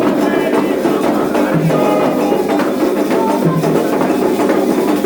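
Music with singing over dense percussion, a short low bass note recurring about every two seconds.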